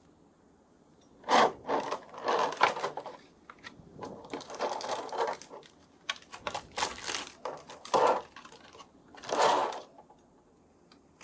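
Toy packaging being handled: a run of irregular rustling and scraping bursts, loudest near the start and again around eight and nine and a half seconds in.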